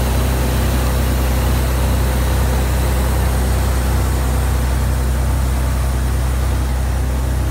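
Engine of a motor water pump running steadily with a low, even drone, while water gushes and splashes out of a tube-well head being flushed clean.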